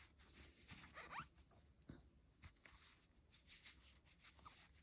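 Faint, scattered squeaks and rasps of cotton yarn rubbing on a crochet hook as single crochet stitches are worked.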